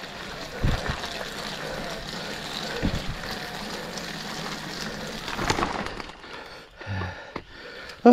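Mountain bike rolling through wet mud: a steady rushing noise from the tyres with a few knocks from the bike, easing off about six seconds in.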